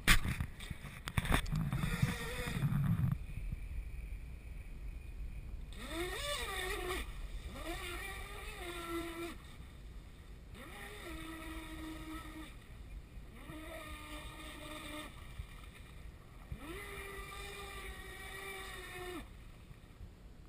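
A brushless electric motor on a 6S RC racing catamaran, whining in five separate throttle bursts, each rising in pitch and then holding steady. A couple of loud knocks come in the first second or so.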